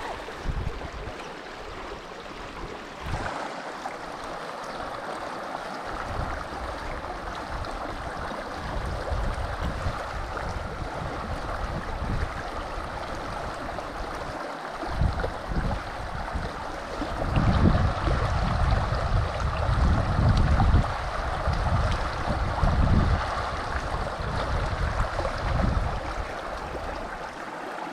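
Steady rush of a small mountain creek, with irregular low rumbling buffets that grow loudest a little past the middle.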